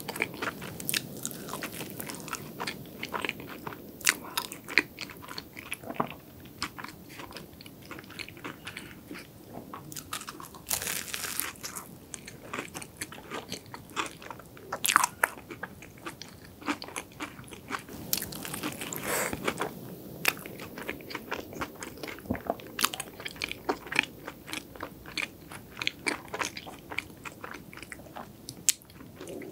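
Biting into and chewing a chocolate croquant choux puff: its crisp, crumbly topping makes a crispy crunching of many irregular small snaps, with louder bursts of crunching now and then.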